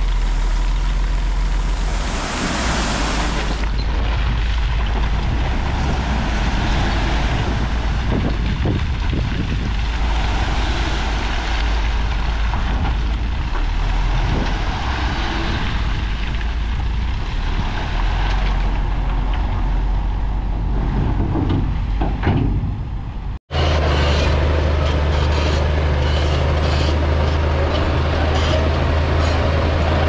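Heavy diesel engines of a bulldozer and dump trucks working steadily, with a brief hiss about two to three seconds in. The sound breaks off sharply about 23 seconds in and resumes as a steadier, deeper engine drone.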